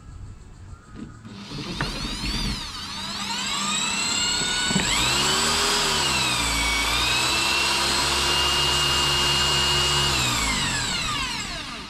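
Cordless drill boring a shallow starter hole in a Perspex windscreen, not all the way through. The motor's whine builds up over the first few seconds, runs steady with one brief dip in pitch, and winds down near the end.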